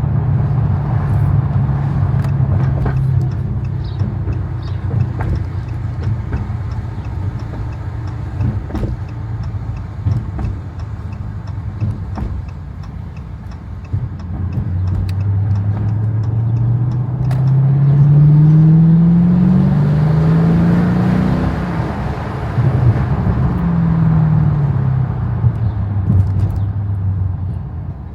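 Dodge Challenger's Hemi V8 running while driving: a steady drone, then about halfway through it accelerates, its pitch climbing in steps through a couple of upshifts, before easing off with the pitch falling near the end.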